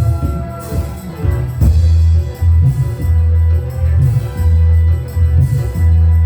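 Dangdut band playing an instrumental passage live, with a heavy bass line in a stop-start rhythm under drums and melody instruments.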